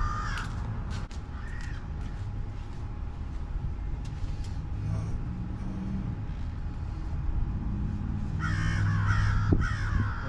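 Birds giving harsh, cawing calls: a brief call just after the start and near 1.5 s, then a longer run of calls over the last two seconds. A steady low rumble runs underneath, with a few light clicks near the start.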